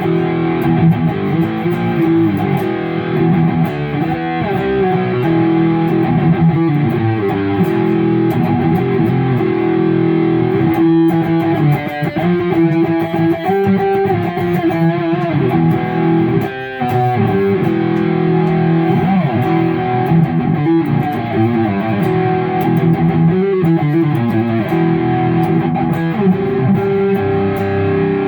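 Kiesel Crescent electric guitar with Kiesel Polarity active pickups, played through a Mesa Mark IV amp profile: continuous rhythm-guitar chord playing, with a short gap about 16 seconds in.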